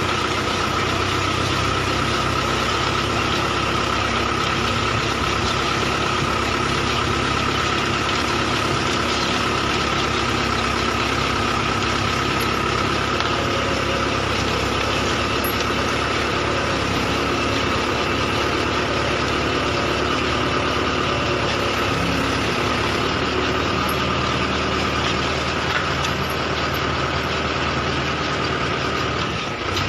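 Tractor engine driving a pole-hole digger, running steadily with a constant high whine over the engine note.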